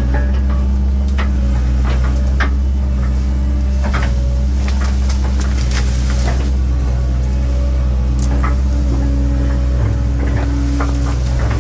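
Diesel engine of a 1997 Link-Belt 2700 excavator running steadily, with scattered short clunks and knocks over it.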